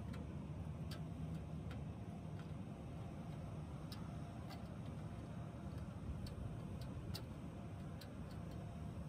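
Light, irregular clicks and ticks, about one a second, from a gloved hand handling wiring and parts around a blower motor and its capacitor. A steady low rumble runs underneath.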